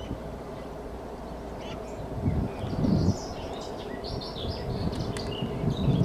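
Small songbirds chirping and twittering in quick short calls, starting about two and a half seconds in, over a steady low background noise. A low rumble swells about two seconds in and again near the end.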